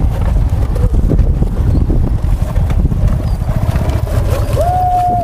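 Motorcycle on a rough offroad dirt trail: a dense, choppy low rumble of engine and jolting. A short held tone sounds near the end.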